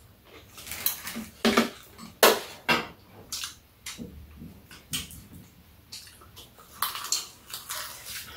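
Metal spoons clinking and scraping against small bowls and a metal serving tray during a meal: a string of sharp, irregular clinks, with a longer scrape near the end.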